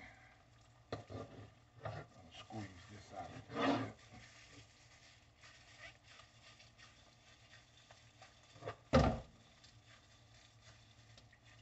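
Scattered wet handling noises of raw pig chitterlings being lifted and pulled in plastic-gloved hands, with a few short knocks and rustles and a heavier thump about nine seconds in.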